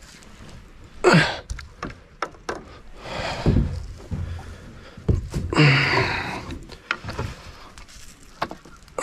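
A hooked grass carp splashing at the surface beside a small plastic boat while being played in: several short, loud rushes of water about a second in, midway and a little later, with knocks and thuds from the angler moving about in the boat.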